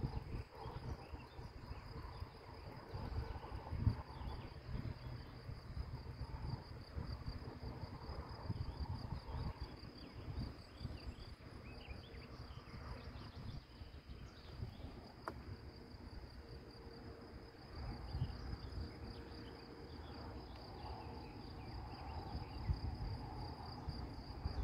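Insects chirring steadily in a high, fast-pulsing tone, with wind gusting on the microphone.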